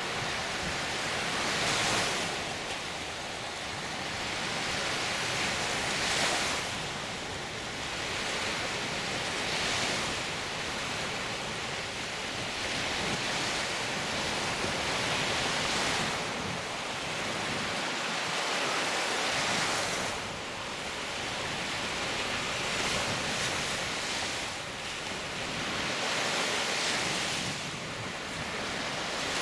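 Baltic Sea surf: small waves breaking and washing up on a sandy beach, a steady rushing that swells every few seconds, with wind.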